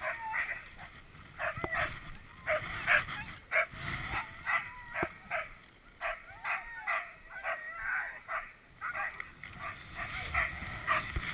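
A small team of harnessed sled dogs barking, yipping and whining in quick, repeated calls while held in place at the start of a run, eager to go.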